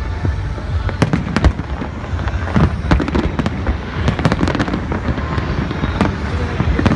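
Fireworks exploding in a rapid, irregular barrage of sharp bangs and crackles over a continuous low rumble.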